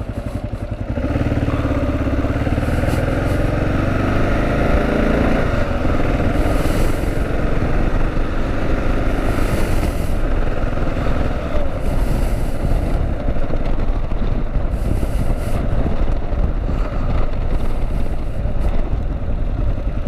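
Kawasaki KLR 650's single-cylinder engine picking up speed, its pitch rising over the first few seconds, then running steadily at road speed with wind noise over the rider's microphone.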